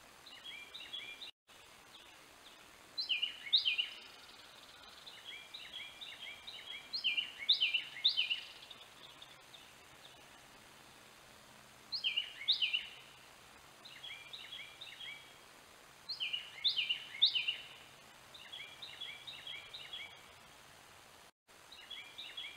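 Songbirds singing: short phrases of quick down-slurred chirps, repeated every couple of seconds, alternating louder and softer as if two birds are answering each other. The sound cuts out briefly twice.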